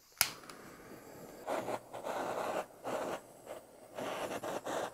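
Kitchen blowtorch: a sharp click as it is lit just after the start, then the rushing hiss of its flame in several short stretches as it browns the meringue.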